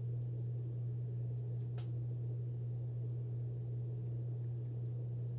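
Electric fan running with a steady low hum. A faint click about two seconds in.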